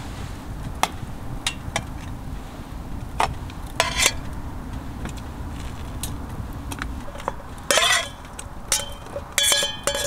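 Metal cookware and utensils clinking and knocking now and then, with a few louder clatters in the second half, one of them ringing, over a low steady rumble.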